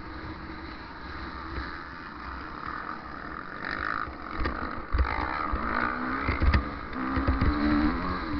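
Off-road motorcycle engine running on a motocross track, heard from an onboard camera with wind on the microphone. It gets louder about halfway through, with low knocks from about five seconds in and the engine revving up near the end.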